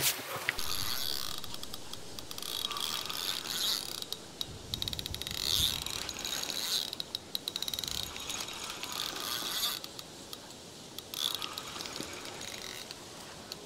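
Fishing reel on a carp rod ratcheting in quick runs of fine ticks, stopping and starting several times as line goes on or off the spool.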